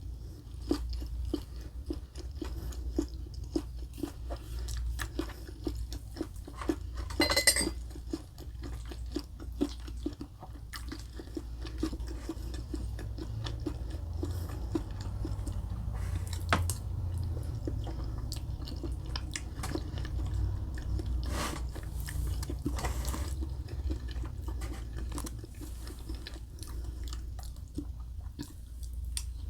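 Close-up chewing and crunching of food, such as crisp breaded chicken katsu, made up of many small wet clicks and crunches. A few louder, sharper sounds stand out, the loudest about seven seconds in.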